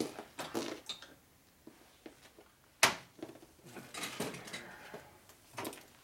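Metal hand tools being picked up and rummaged through, with scattered light clinks and rustles and one sharp metallic clank about three seconds in.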